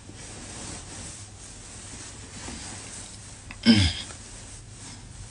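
Steady low room hiss picked up by a phone microphone, broken about three and a half seconds in by one short vocal sound from the woman that falls in pitch.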